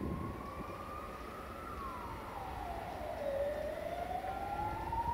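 Emergency vehicle siren wailing: a single tone rises slowly, drops steeply a little before halfway, then climbs again.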